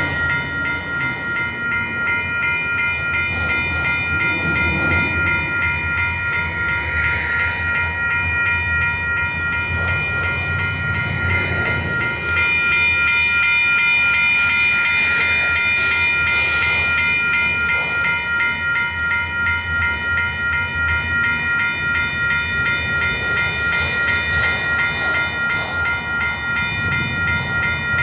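A railroad grade-crossing bell rings continuously, its ringing tones the loudest sound. Under it is the steady rumble and rattle of a long freight train of autorack cars rolling past.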